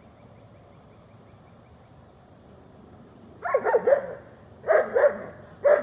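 A dog barking in three quick volleys of several barks each, starting about three and a half seconds in.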